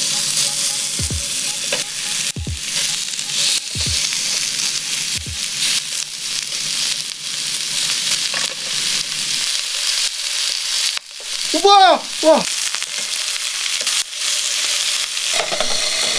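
Strips of raw pork belly sizzling steadily in a hot frying pan.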